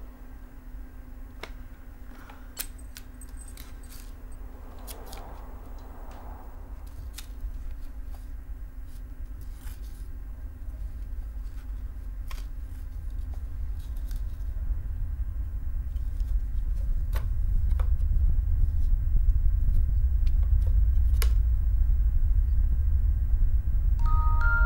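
Low rumbling drone of a horror film score that swells steadily louder, under scattered small clicks and taps of objects being handled.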